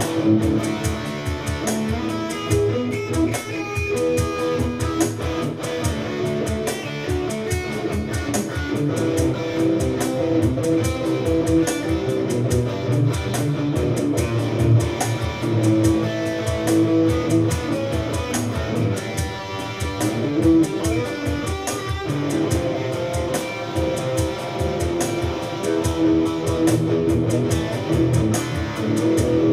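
Electric guitar jamming on the neck pickup, a dark tone with definition: steady lines of picked and sustained notes in a continuous rhythm.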